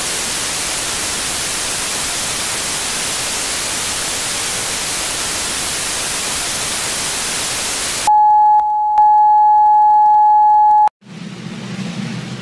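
Analogue television static hissing steadily for about eight seconds, then a loud steady test tone held for about three seconds with a short break soon after it starts. The tone cuts off suddenly into a low hum.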